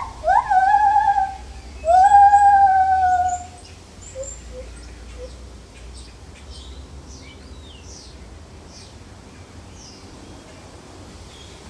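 Lar gibbon hooting: two long, loud hoots, the first swooping up and then holding its pitch, the second gliding slowly down. After them only faint background remains.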